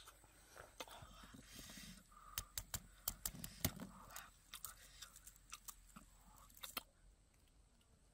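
Eating: crunching and tearing of food, with a run of sharp crackling clicks that stops about seven seconds in.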